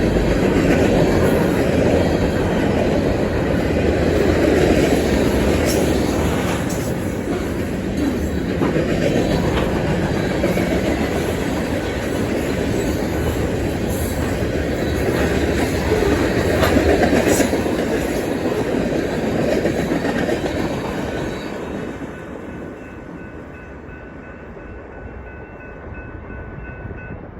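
Freight cars of a passing manifest train rolling by at speed: a steady rumble and clatter of steel wheels on the rails, with a few sharp metallic clanks. The sound fades away about 22 seconds in.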